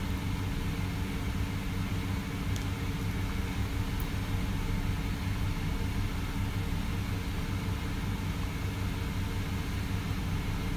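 Steady low machine hum that stays even throughout, with a couple of faint ticks a few seconds in.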